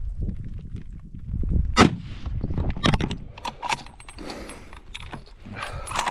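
Several sharp knocks and a low rubbing, the loudest about two seconds in: handling noise as the camera is pressed and dragged against rock and clothing.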